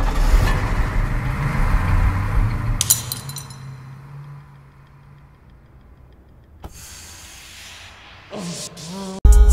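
A school bus engine running as it pulls away, fading out over the first three seconds and leaving a low hum. About two-thirds of the way in, a sharp click and then a hiss as a smoke grenade starts to vent. Loud music with a heavy beat cuts in just before the end.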